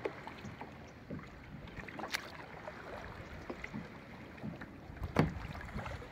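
Double-bladed kayak paddle dipping and pulling through calm water, with small splashes and drips and a sharper splash or knock about two seconds in and a louder one about five seconds in.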